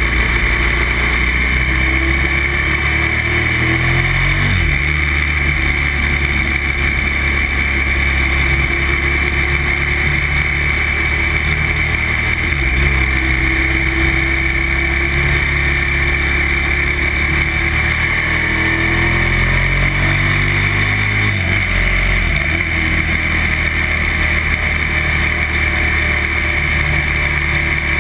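Motorcycle engine accelerating through the gears: its pitch climbs and drops back at each of a few upshifts, over a steady rush of wind noise.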